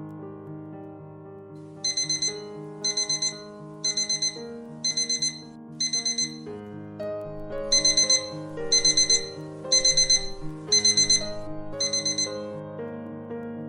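Electronic alarm clock beeping in quick groups of four, about one group a second, over soft piano background music. The beeping breaks off briefly about halfway through, then comes back louder.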